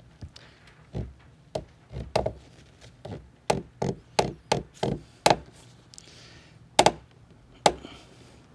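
Strap wrench tightening a PVC bulkhead fitting into a plastic tank wall: a run of sharp, irregular clicks and creaks as the fitting is turned in short pulls, with two louder clicks near the end.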